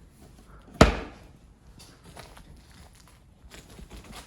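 An old wooden drawer being handled: one sharp knock about a second in, then faint clicks and rustling.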